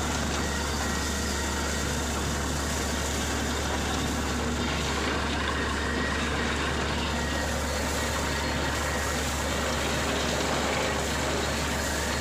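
Truck-mounted borewell drilling rig running steadily: an unbroken, heavy machine noise with a strong low hum that neither rises nor falls.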